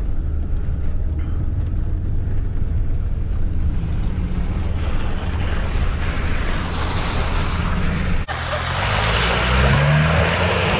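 Land Rover Discovery 2 TD5's five-cylinder turbodiesel droning inside the cabin while driving a muddy track, with tyre hiss growing louder about halfway in. About eight seconds in the sound changes abruptly to a Land Rover Defender's engine revving up as it drives through mud and standing water, with splashing.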